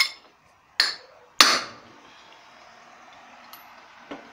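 Hammer blows on a car driveshaft, three sharp metallic strikes less than a second apart, the third the loudest with a brief ring, driving the heads of its tripod CV joint down into the cup housing.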